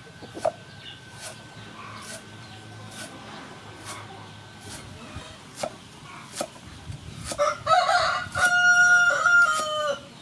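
Cleaver chopping lemongrass on a wooden chopping block, a sharp knock a little more often than once a second. Near the end a rooster crows loudly for about two and a half seconds, its call dropping in pitch as it ends.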